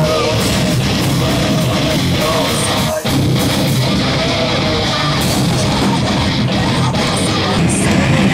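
Heavy metal band playing live, with electric guitar and bass guitar, and a short break in the sound about three seconds in.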